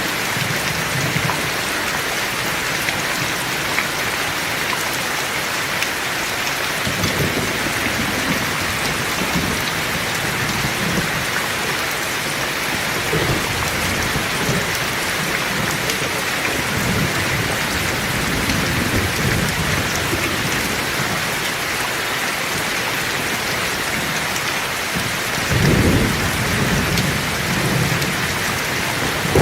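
Heavy rain pouring steadily, with low thunder rumbling through it from about a quarter of the way in; the loudest roll of thunder comes near the end.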